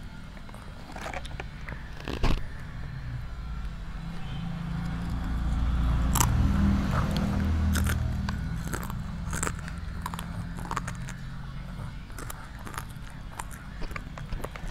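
A toddler biting and chewing a crunchy snack close to a clip-on microphone, with many short crisp crunches from about six seconds in. A single sharp knock sounds about two seconds in.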